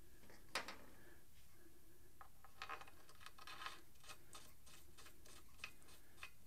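Faint clicks and light scratching of hand work on a motorcycle's front fork leg: a lubricated locking bolt being handled and fitted by hand, with one sharper click about half a second in.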